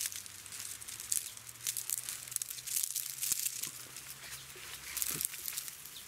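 Dry oil palm fronds rustling and crackling in quick irregular bursts as they are parted and handled by hand.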